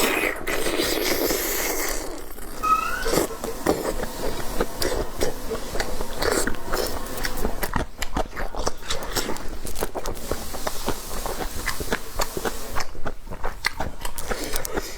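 Close-miked eating: continual chewing and biting with wet clicks and smacks, a brief hissing noise in the first two seconds and a short squeak about three seconds in.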